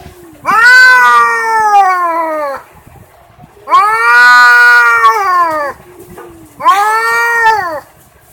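Domestic cat yowling: three loud, long drawn-out calls, each rising slightly and then falling away in pitch, with short pauses between them.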